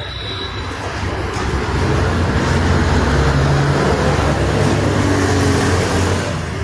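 A motor vehicle passing close by on the road, its engine and tyre noise swelling over the first couple of seconds, staying loud, then easing near the end.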